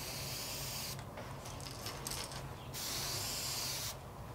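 Airbrush spraying paint onto a lure in two hissing bursts of about a second each, with a gap between them, at lowered air pressure.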